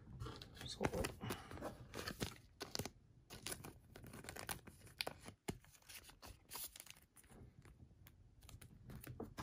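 Faint, scattered rustling and crinkling of a thin, clear plastic card sleeve as a trading card is handled and slid into it.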